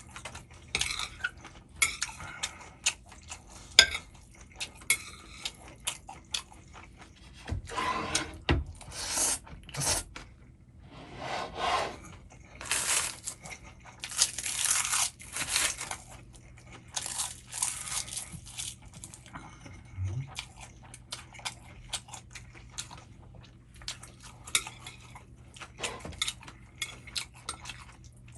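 Eating instant jjajang noodles (Chapagetti) from a bowl: many sharp clicks and clinks of utensils against the dish, with several stretches of slurping and chewing lasting a second or two.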